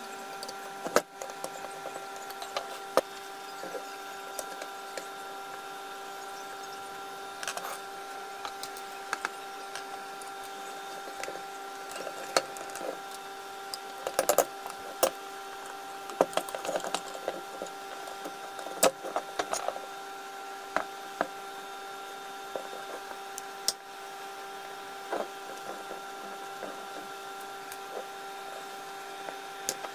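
Scattered clicks and knocks of a Makita 1902 planer's plastic housing and small parts being handled and set down on a wooden workbench during disassembly, busiest in the middle. A steady background hum runs underneath.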